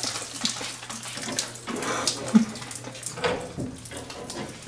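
Water splashing and pouring in irregular gushes from a leaking pipe joint: a failed home plumbing repair leaking under test.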